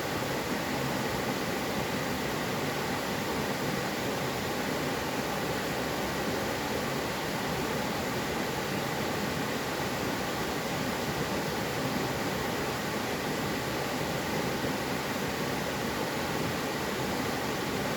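Mountain valley stream flowing: a steady, even rush of water with no single splash standing out.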